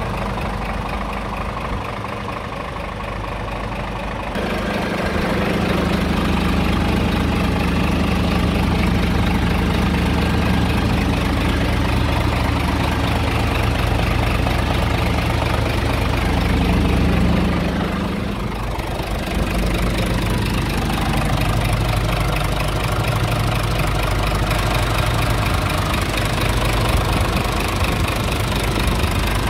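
Scania R truck's diesel engine idling steadily. It grows louder about four seconds in, and its tone shifts briefly around eighteen seconds in.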